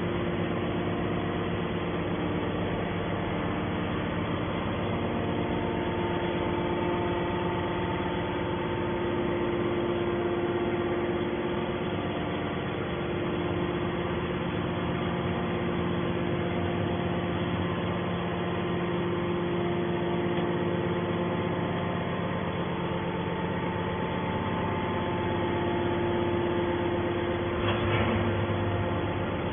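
Hydraulic scrap metal baler running with a steady mechanical hum of several fixed tones, with a brief louder noise near the end.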